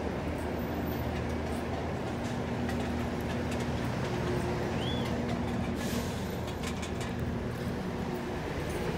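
Stopped METRORail light rail train standing at the platform with its doors open, giving a steady low hum with a few held tones. There is a brief high chirp about halfway through.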